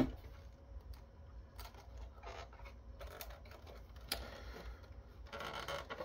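Plastic case of an Acer Aspire Revo R3610 mini PC being handled and turned over in the hands, with faint scrapes and rubs and a few light clicks, and a longer stretch of rubbing near the end.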